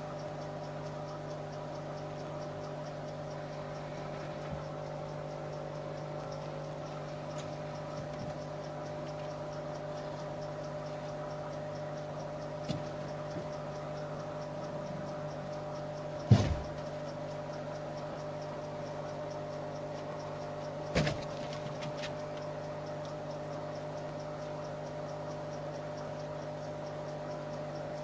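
Kitten batting a rubber balloon: a few dull thumps, the loudest about halfway through and a quick double one a little later, over a steady hum.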